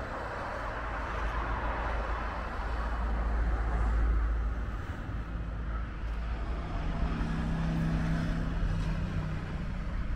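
Street traffic: a vehicle passes, swelling to its loudest about four seconds in and then fading, followed by the low hum of an engine.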